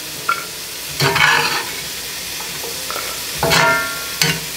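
Chopped vegetables sizzling steadily in bacon fat in a skillet, while a metal spoon scrapes them in and stirs, clinking against the dish and pan several times; the loudest clatter comes about a second in, and a ringing clink about three and a half seconds in.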